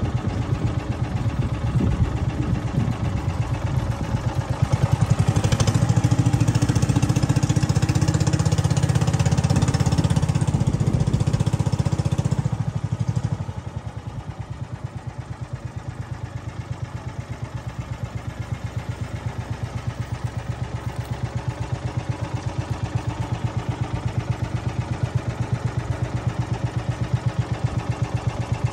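A small motorboat's engine running steadily with an even, rapid pulse as the boat moves along a canal. It runs louder for several seconds, then is throttled back about halfway through to a quieter, lower putter.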